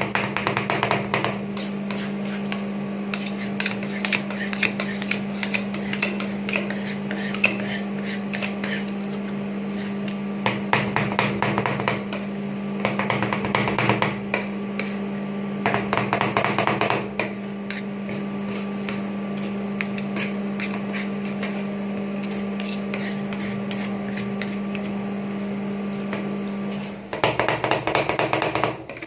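Two metal spatulas rapidly chopping and tapping ice-cream mixture on a frozen steel rolled-ice-cream pan, in fast clattering bursts with lighter tapping and scraping between. A steady low hum runs underneath and stops near the end.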